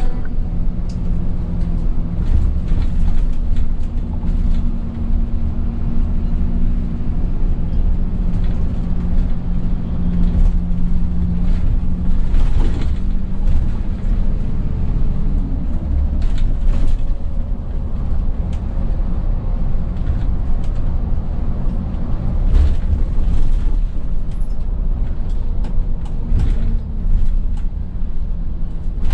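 Coach engine and tyre rumble heard from the front of the bus cabin while driving. A steady low drone carries an engine note that holds for about the first twelve seconds and then drops away, with scattered light knocks and rattles.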